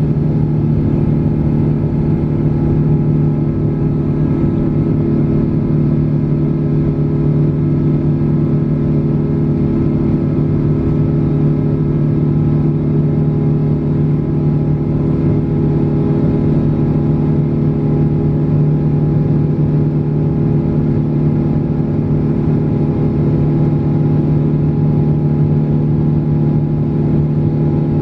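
Cabin noise of a Boeing 777 climbing after takeoff: its GE90 turbofan engines at climb power give a loud, steady drone of several held tones over a constant rush of airflow.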